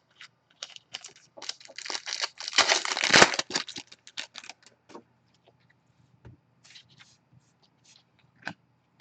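A trading card pack wrapper being torn open and crinkled. It is a dense crackling rustle, loudest about three seconds in, which thins out to scattered light clicks and rustles in the second half.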